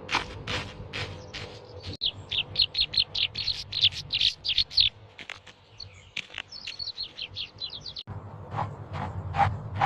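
A bird chirping rapidly in quick, high, falling notes, several a second, from about two seconds in until about eight seconds in. Before and after, a run of quick clicking taps.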